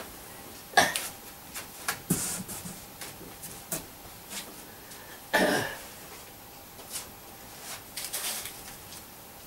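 Household handling noise: a sharp knock just under a second in, then scattered clicks and rustles as a person moves about. There is a short cough about five and a half seconds in, and crinkling of a plastic bag near the end as a banjo wrapped in one is picked up.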